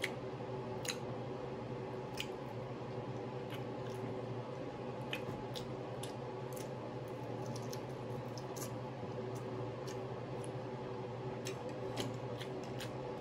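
Close-miked chewing and wet mouth sounds, with scattered small clicks and light taps of a fork on a glass platter, over a steady low hum.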